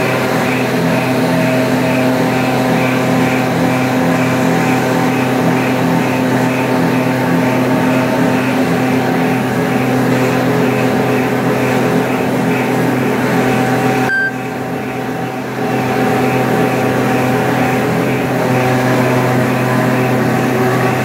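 Plastic granule extrusion machine (90 mm extruder) running: a loud, steady machine drone made of several held tones, with a fast, regular ticking higher up. About two thirds of the way through, the sound dips and dulls for a second or two, then returns.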